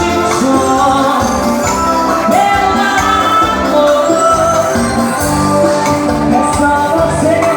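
A woman singing over upbeat Brazilian dance music with a steady beat and percussion.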